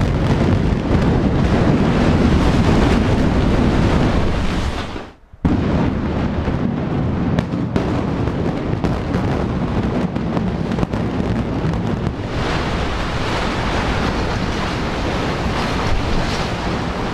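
Rumble and crashing of concrete tower blocks collapsing after a controlled demolition blast. The noise breaks off for a moment about five seconds in, then continues and turns hissier from about twelve seconds in, likely debris and dust with wind on the microphone.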